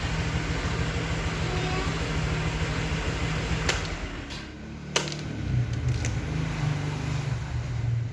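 Honda Vario 125 scooter's single-cylinder engine idling steadily. The hum dips and shifts in pitch about halfway through, with a few sharp clicks in the second half, the loudest about five seconds in.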